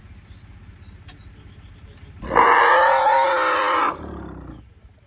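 Young African elephant calf giving one loud, steady-pitched call lasting about a second and a half, then trailing off more quietly before it stops.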